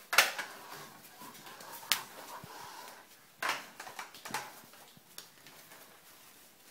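Small plastic toy truck knocking and rolling on a hard floor as it is pushed by hand: four sharp knocks, the loudest just after the start, with faint scraping between.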